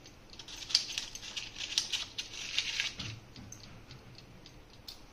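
Paper cupcake liners in a metal muffin tray crinkling and rustling as they are handled and brushed with oil, a scratchy crackle for about three seconds, then a light knock and a fade to near quiet.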